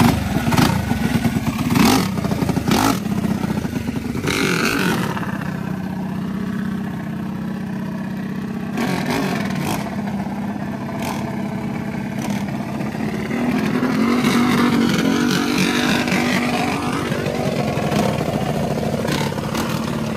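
Small-block minibike engines running at speed with a steady drone, with several sharp revs in the first few seconds.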